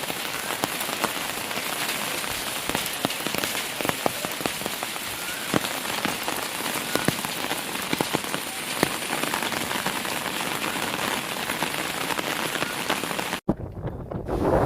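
Heavy rain falling steadily, with many individual drops ticking on nearby surfaces. It cuts off abruptly near the end, and a quieter stretch follows.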